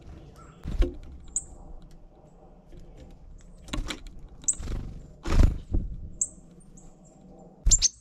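Small songbirds giving short, high chirps at a tube seed feeder, five or six scattered notes. Several dull thumps and knocks come in between, the loudest about halfway through and another near the end.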